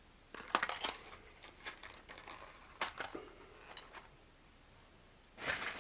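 Plastic blister packs of fishing lures being handled on a tabletop: scattered clicks and crinkly rustles, with a louder bout of rustling near the end.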